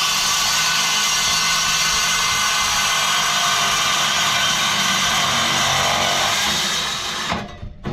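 Cordless Evolution circular saw with a metal-cutting blade cutting through steel: a loud, steady screech that winds down and stops near the end, followed by a knock or two.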